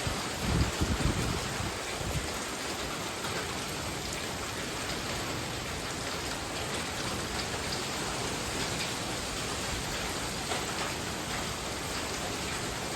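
Steady heavy rain pouring down in hurricane winds, with a gust buffeting the microphone with a low rumble about a second in.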